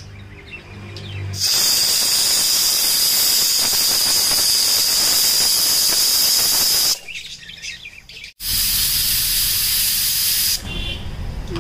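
Prestige pressure cooker whistling on the stove: steam jets through the weight valve as a loud hiss with a steady high whistle, twice, first for about five seconds, then for about two. The whistles mark full pressure and are counted to time the cooking.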